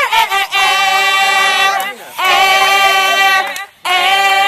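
A group of voices singing long held notes together, in three sustained phrases with brief breaks between them.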